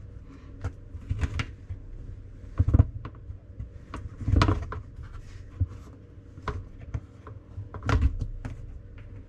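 A new rubber diverter valve seal, slick with rinse aid, being pressed by hand into the plastic sump housing of a KitchenAid dishwasher: scattered small clicks and knocks of plastic, with three louder knocks.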